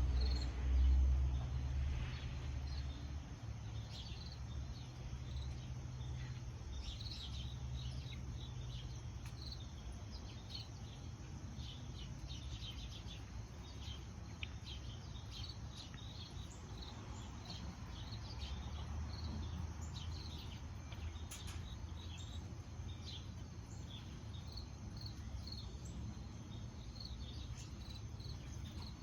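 Small birds chirping: many short, high chirps come irregularly and overlap, over a low rumble that is loudest in the first couple of seconds.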